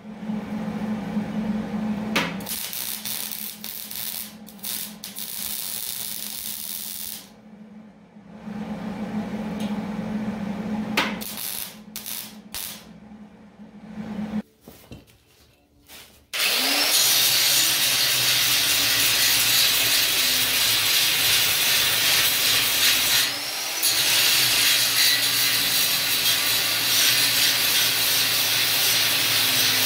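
A few short runs of arc welding, crackling with a low hum from the welder. Then, just past halfway, an angle grinder starts cutting steel angle iron and runs steadily, with a brief dip about three-quarters of the way in.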